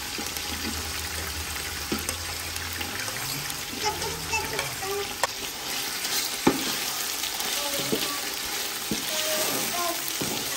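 Fried onions, chopped tomatoes and green chillies sizzling in hot oil in an aluminium pot as a wooden spoon stirs them, with a few sharp knocks of the spoon against the pot.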